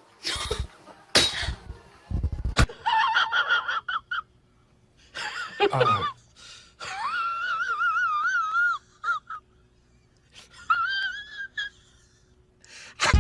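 A cat yowling: four drawn-out, high, wavering cries, the longest nearly two seconds, after a few short breathy noises at the start.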